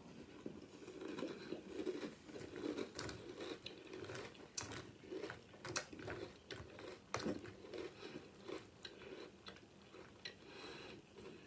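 A person chewing crunchy Sour Patch Kids cereal: an irregular run of crunches and mouth clicks, with a few louder snaps near the middle.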